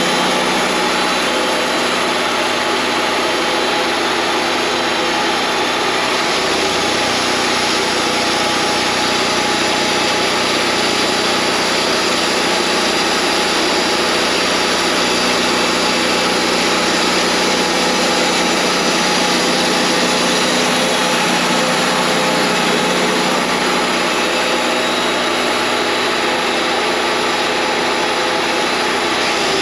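Wood-Mizer LT40 band sawmill running steadily, its motor and blade making a continuous mechanical drone, with a shift in the low end of the sound about six seconds in and again near the end.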